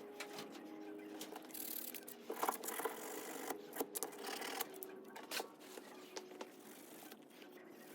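Irregular scraping, clicking and rustling of dirt bike parts being handled and wiped clean, busiest through the first half.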